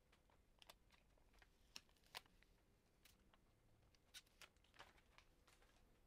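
Faint crinkling and small scattered clicks of thin protective plastic film being peeled off a new MacBook Air battery, over near silence.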